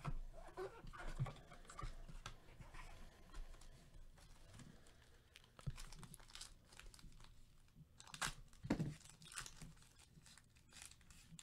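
Foil wrapper of a 2020 Topps Tier One baseball card pack being crinkled and torn open by gloved hands: faint, irregular crackling, louder for a moment about eight seconds in.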